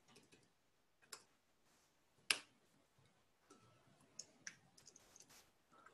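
Faint, scattered computer-keyboard keystrokes. A single key click comes about a second in and a louder one just after two seconds, then a quicker run of softer clicks near the end.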